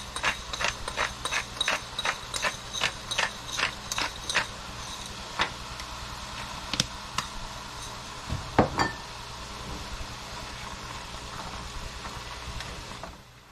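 Hand-twisted pepper mill grinding a black pepper medley: a quick even run of ratcheting clicks, about four a second, for the first four seconds or so, then a few scattered clicks.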